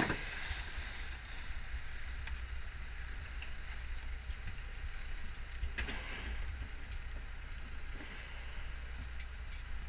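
A boat's engine running steadily as the boat moves through choppy water, with wind and water hiss over a low hum. About six seconds in there is a brief rush of noise.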